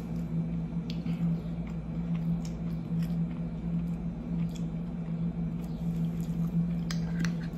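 Faint wet clicks of a person chewing food, over a steady low hum.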